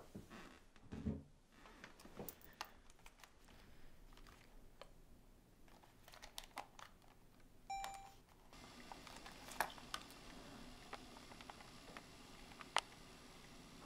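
Faint clicks and taps of a Sony handheld camcorder being handled and its buttons pressed, then a short electronic beep just before eight seconds in as it switches on. Right after the beep a steady faint hiss sets in with a few sharp clicks: the camcorder's old recorded footage playing back.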